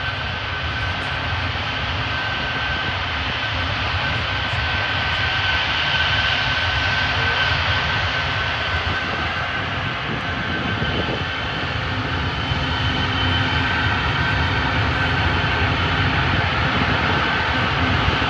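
Antonov An-124's four turbofan engines running as the freighter taxis after landing: a steady jet rumble with a high whine held on one note, growing a little louder in the second half.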